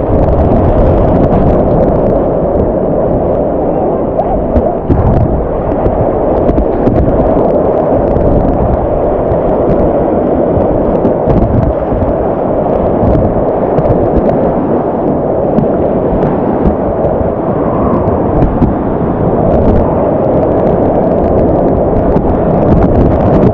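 Loud, steady rush of whitewater rapids around a kayak running an artificial rapids channel, muffled and heavy in the low end.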